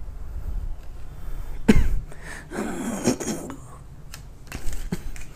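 Plastic specification sticker being peeled off a smartphone's screen, with handling noise: a sharp knock about one and a half seconds in, a rustling stretch around three seconds in, and a smaller knock near the end.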